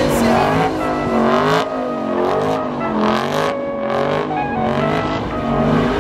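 Car engines revving, the pitch rising and falling again and again.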